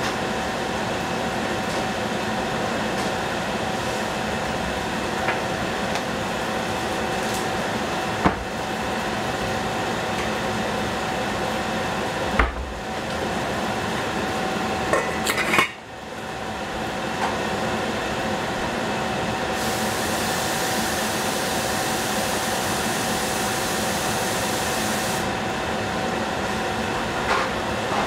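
Stainless steel saucepan lid clinking as it is lifted off the pot about halfway through and set back on near the end, over a steady kitchen hum and hiss.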